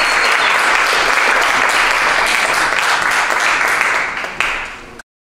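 Audience applauding, thinning out near the end with a brief last swell before the sound cuts off suddenly.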